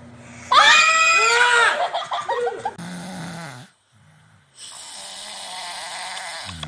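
Sleeping men snoring, heard in two clips one after the other. First comes a loud, wavering high-pitched snore about half a second in and a lower one after it; after a short break a steadier, quieter snore follows.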